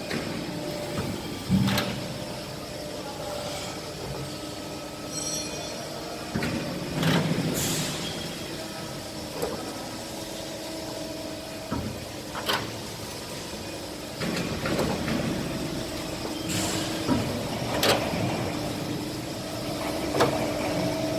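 Hydraulic guillotine shear with its power unit humming steadily, broken every few seconds by sharp clanks and short bursts of air hiss as the machine works through its cycle.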